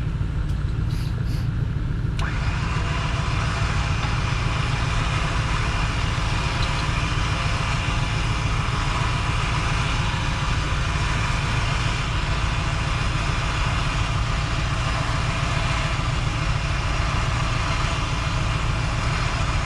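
Jeep engine idling, joined about two seconds in by the steady whirr of an electric winch motor starting up and reeling its cable in.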